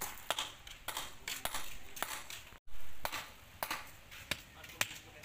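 Sledgehammer striking a concrete gate post to chip the concrete away around the embedded steel bars: sharp, separate knocks, about two to three a second.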